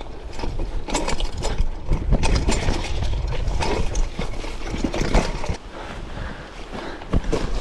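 Mountain bike rattling and clattering over a rough, rocky trail, with irregular knocks from the frame and components and a low rumble from the ride. It is busiest during the first five seconds or so, then eases to fewer, lighter knocks.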